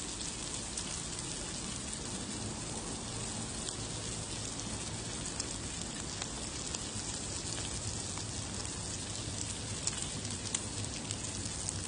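Slices of pork belly sizzling steadily on a hot grill plate, with faint scattered crackles.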